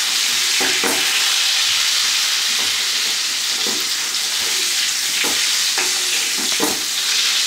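Pork steak sizzling in hot butter and oil in a cast-iron skillet, a steady frying hiss. A few short clicks now and then as a spoon bastes the meat with the pan fat.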